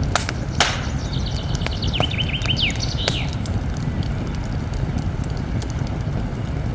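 Campfire crackling: sharp pops and snaps over a steady low rumble. About a second in, a small bird calls briefly, a quick run of short falling notes.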